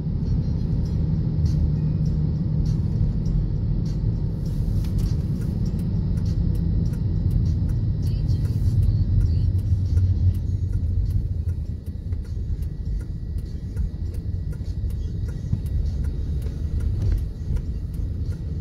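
Car cabin road noise: a steady low rumble of engine and tyres while driving, easing a little about two-thirds of the way through.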